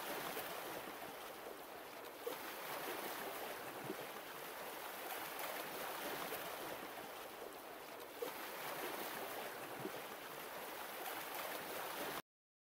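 Faint, steady rushing noise, like hiss or distant water, swelling and fading a little, with a few soft ticks; it cuts off suddenly near the end.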